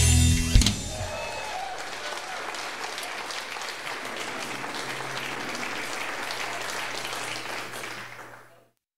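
A rock band's last chord ends with a final drum hit under a second in. The audience then applauds, with a few voices calling out over a low steady hum, and the sound fades out near the end.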